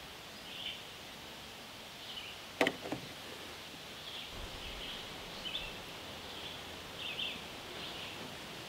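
Quiet outdoor background with a steady low hiss and faint, short high chirps recurring every second or so. About two and a half seconds in there is one sharp tap, the loudest sound, followed by a softer one.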